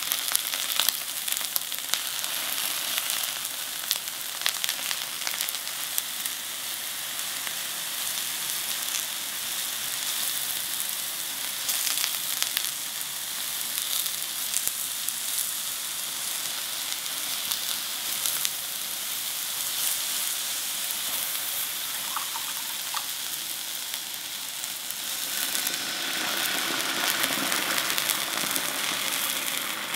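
Eggplant pieces sizzling and crackling in vegetable oil in a frying pan. About 25 seconds in, the seasoning liquid of dashi, soy sauce and mirin is poured into the hot pan, and the sizzle grows louder.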